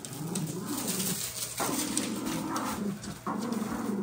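Two small dogs vocalizing while playing together, in a few drawn-out low stretches lasting a second or so each.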